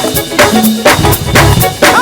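Live gospel band playing an instrumental groove: drum kit hits about two or three times a second over low bass notes and sustained chords.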